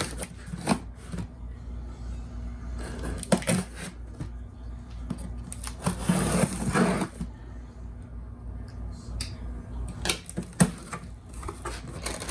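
Folding knife blade slitting the packing tape along a corrugated cardboard shipping box, with scrapes, taps and knocks as the box is held and turned, and a longer scraping stretch midway as the blade is drawn along the seam. Toward the end the cardboard flaps are pulled open.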